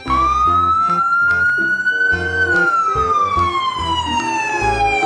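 Ambulance siren in a slow wail: a single tone rises for about two seconds, falls for about two and a half, and starts climbing again at the end. Background music with a bass line plays underneath.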